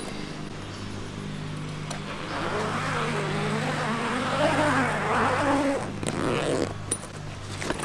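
Zipper being pulled open along the vinyl travel cover of a roof-rack-mounted roll-out awning, the Overland Vehicle Systems 270. It is a rasping run of about four seconds, starting about two seconds in, and its pitch rises and falls with the speed of the pull.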